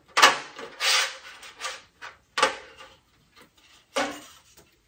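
Tabletop handling noises: about five short knocks and scrapes as small magnetic metal wreath pieces are set and slid onto a wooden-framed sign board, the loudest near the start.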